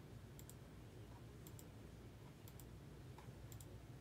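Faint computer mouse clicks, each a quick pair (button press and release), about once a second, four times, each one re-running an online list randomizer.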